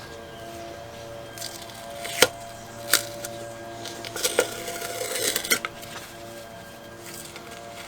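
A few sharp metal clinks and taps of tools and parts being handled on a workbench, scattered over several seconds, with soft background music underneath.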